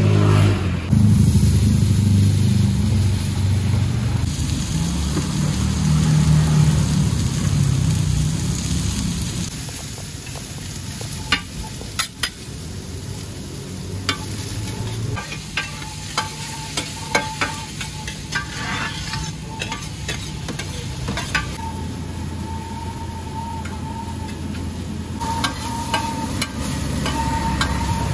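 Cubes of firm tofu sizzling in oil on a large flat griddle pan, with metal spatulas clacking and scraping against the pan as they are turned; the clacks come thick and irregular from about ten seconds in. A low rumble underlies the first ten seconds or so.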